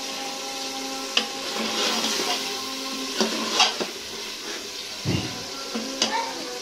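Metal ladle stirring a simmering curry of apple gourd and meat in a pressure-cooker pot on a gas flame, with a steady sizzle. Several sharp clinks of the ladle on the pot come through.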